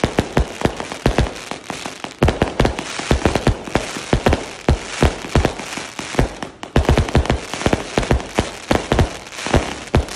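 A 388-shot, 0.8-inch consumer fireworks cake firing in rapid succession: sharp launch thumps and aerial bursts, about three or four a second, over a hiss of crackling stars. The barrage thins briefly past the middle and turns denser near the end.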